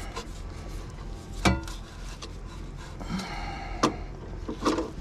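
Hand tools knocking, scraping and clinking against the exhaust hanger while an old rubber exhaust bushing is worked loose. There is a sharp knock about a second and a half in, a short metallic ring around three seconds, and a few quicker clinks near the end.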